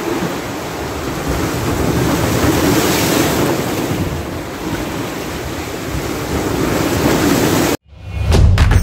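Sea waves washing against shoreline rocks, with wind buffeting the microphone. Near the end it cuts off abruptly and intro music with heavy low beats starts.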